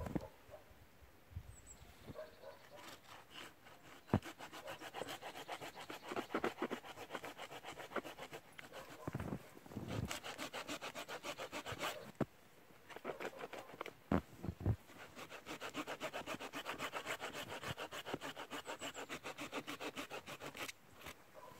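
Folding hand saw cutting through a branch of dead-standing hardwood with quick, even back-and-forth strokes, in three spells with short pauses between them. A few sharp knocks stand out among the strokes.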